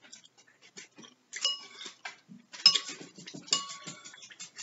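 Metal spoon clinking against a ceramic soup bowl three times, each clink ringing briefly.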